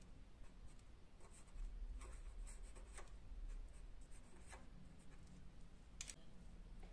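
Felt-tip pen writing on paper: faint scratching strokes with a few small ticks as the tip touches down and lifts.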